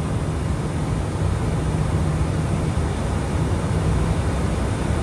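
Steady noise heard aboard an Airbus A320: an even rush of air and engine sound with a low steady hum underneath, unchanging throughout.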